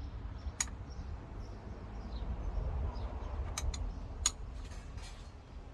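A few sharp clicks over a steady low rumble, with faint high chirps.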